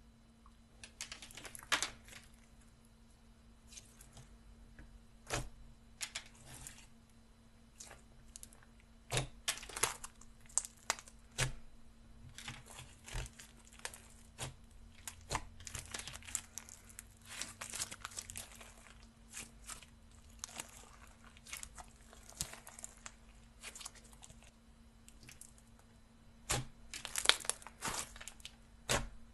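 Slime worked by hand, giving irregular sticky crackles and pops, with thicker clusters of crackling near the end. A faint steady low hum runs underneath.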